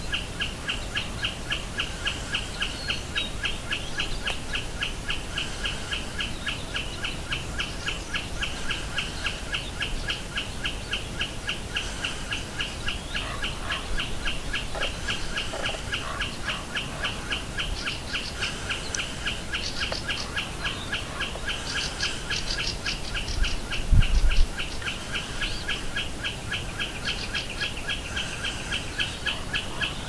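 Common snipe singing its ground song: the same short ticking note repeated evenly over and over without a break. Faint higher birdsong comes and goes in the background, and a single dull thump sounds about 24 seconds in.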